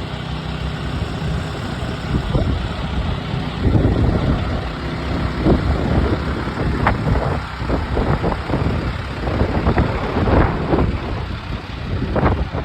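Strong wind gusts buffeting the microphone over a steadily running vehicle engine, with uneven low surges and scattered short sharp cracks.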